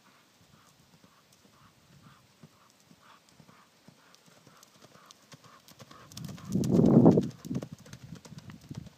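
A small pony's hoofbeats on a sand arena footing, a faint rhythmic canter of about three beats a second. The beats grow loud about seven seconds in as the pony comes close.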